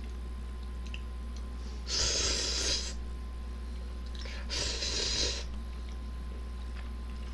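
A person slurping ramen noodles, twice: about two seconds in and again about four and a half seconds in, each slurp lasting about a second.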